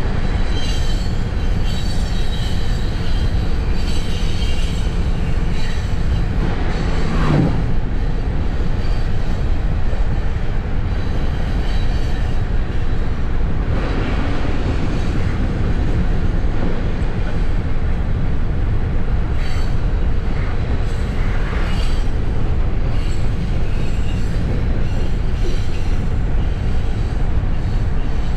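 Steady rumble of a coal train's hopper cars rolling on the rails, heard from inside a car driving alongside, mixed with the car's own road and wind noise.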